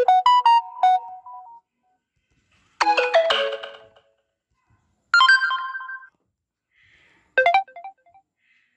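Samsung Galaxy A50 notification tones, four different ones played one after another with short pauses between. Each is a brief electronic chime of a few quick bright notes.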